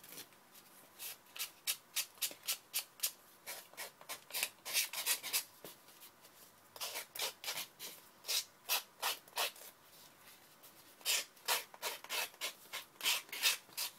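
Wooden craft stick rubbed back and forth along the edge of a paper bookmark strip covered with a glued-on paper napkin, pressing the napkin edge down. Quick scraping strokes, about three a second, come in four runs separated by short pauses.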